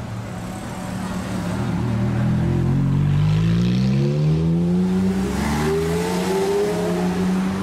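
Supercar engine revving up: its pitch climbs steadily over a few seconds, then holds high with small rises and dips.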